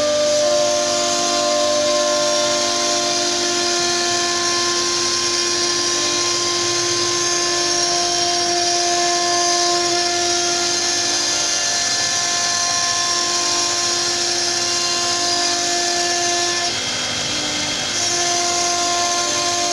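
CNC router spindle running with a steady high whine as the bit cuts wood, with a brief shift in pitch and a slight dip in level near the end.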